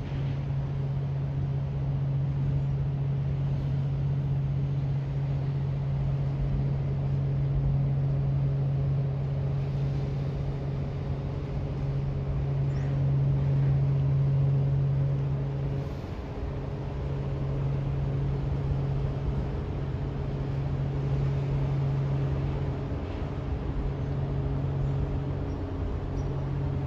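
Engines of the Great Lakes freighter H. Lee White giving a steady low drone as the ship passes close by, dipping briefly a little over halfway through.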